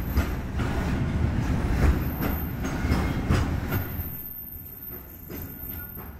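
Freight train's container flatcars rolling past, wheels clacking over the rail joints in a repeating rhythm over a steady low rumble. The sound eases off about four seconds in, then picks up again.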